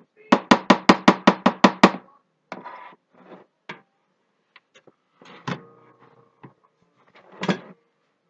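A spatula rapped quickly against the rim of a plastic tub of cut soap, about nine sharp knocks in under two seconds, then a few scattered knocks and scrapes of utensils and a plastic jug being handled on the counter.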